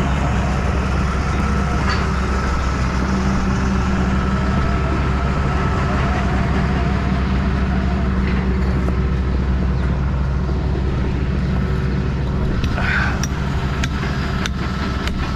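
An engine running steadily at a constant speed, with a few sharp knocks near the end.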